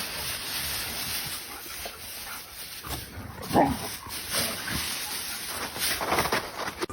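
A dog vocalizing in short calls over a steady hiss; the loudest call, about halfway through, falls in pitch.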